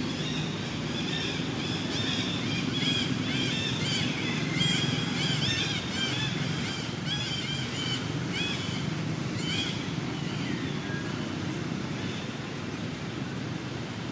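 Many short, high-pitched chirping or squeaking animal calls, several a second, thinning out after about ten seconds, over a steady low background rumble.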